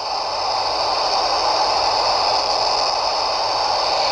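Steady FM static hiss from a Yaesu VX-5R handheld transceiver's speaker, the open-squelch noise of a receiver hearing no signal on the AO-51 satellite downlink.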